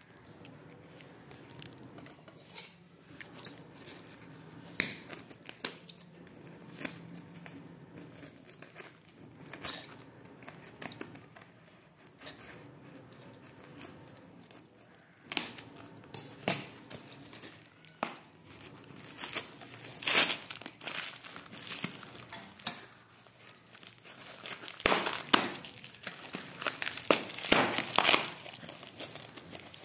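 Scissors snipping and cutting through a parcel's packing tape, then the crinkling and tearing of tape and wrapping as they are pulled off by hand. The crinkling gets louder and busier in the second half.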